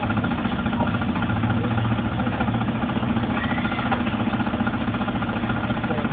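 A steady, unchanging engine-like drone with a low hum and a fast even flutter.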